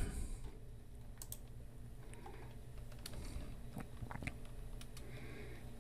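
A few faint, scattered clicks of computer keys, spaced irregularly, over a low steady hum.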